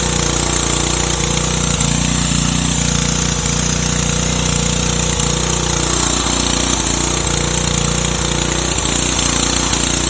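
Pressure washer running steadily, its pump humming under a dense hiss of water jets from an undercarriage cleaner spraying onto the pavement.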